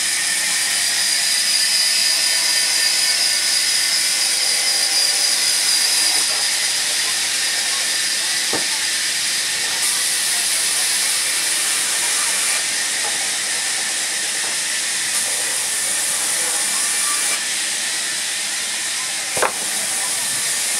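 Steady hiss of noise, with a sharp knock a little before halfway and another, louder one near the end.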